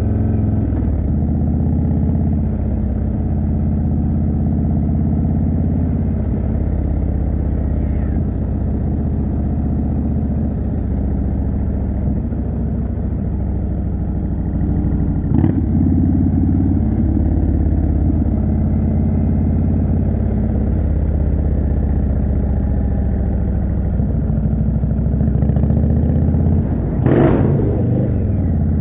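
Indian Chieftain's 1811 cc V-twin running at a steady cruise through a Jekill & Hyde exhaust, deep and even throughout. A short sharp knock comes about halfway, and a louder one near the end.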